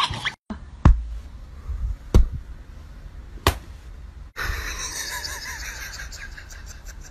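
Three sharp smacks about a second and a quarter apart, the first the loudest, followed by a low, steady hiss of room noise with faint ticks.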